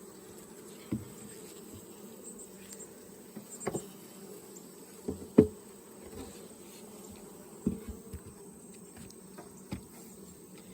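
Honeybee colony buzzing steadily in an open hive, with a few sharp knocks from hive equipment being handled, the loudest about five seconds in.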